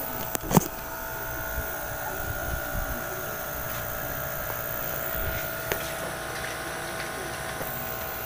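No-frost refrigerator compressor and evaporator fan running on a test board, a steady hum with a faint constant whine. A sharp knock about half a second in and a lighter tick near six seconds.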